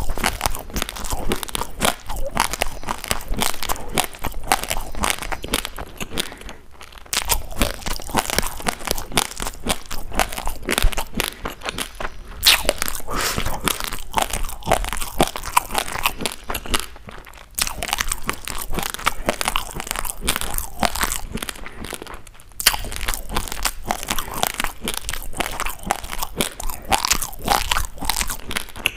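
Raw basmati rice grains crunched between the teeth right at the microphone: a dense, continuous run of sharp crunches and crackles, broken by short pauses three times.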